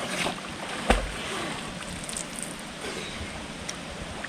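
Steady rush of creek water pouring into a rock pool, with a sudden thump about a second in.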